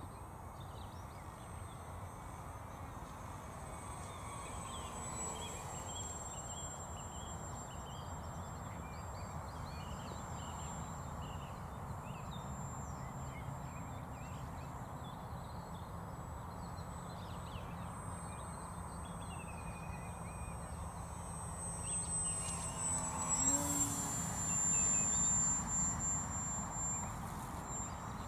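Electric RC model plane (Durafly EFXtra) flying overhead: a thin, high, steady motor whine over a low background rumble. About 23 seconds in the plane passes closer; the whine gets louder and drops slightly in pitch as it goes by.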